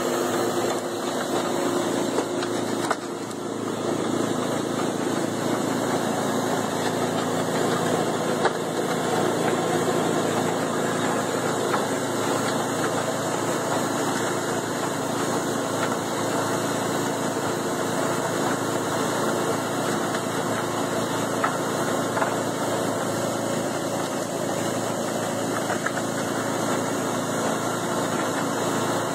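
Vintage Jaeger concrete mixer running steadily, its engine driving the turning mixing drum.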